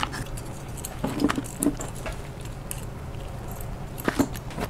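Handling noise of small gimbal parts: scattered light clicks and taps of the metal damper bracket, with rustling of a small plastic parts bag, heaviest about a second in and again near the end.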